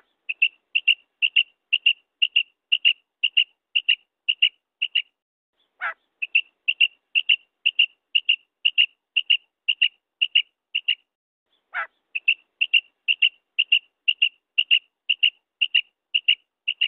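Female common quail calling: a steady run of short, high notes, two to three a second. Three times, about six seconds apart, a longer note slides down in pitch.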